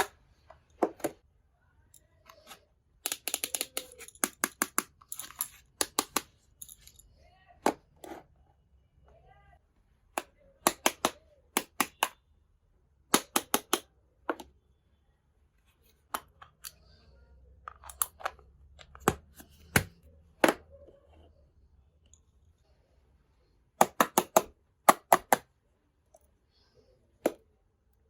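Small toy kitchen pieces being handled: clusters of sharp clicks and taps, with a stretch of rustling about three seconds in.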